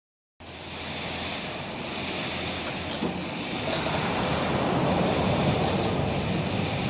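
Pipe roll-grooving machine running as it cuts a groove into steel fire-sprinkler pipe: a steady mechanical noise with a thin high whine, starting about half a second in.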